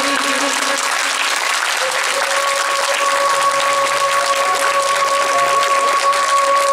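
Audience applauding, with music playing long held notes underneath.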